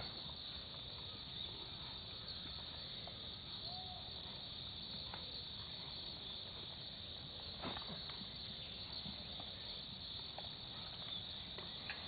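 Steady, faint chirring of insects, with a few soft knocks here and there.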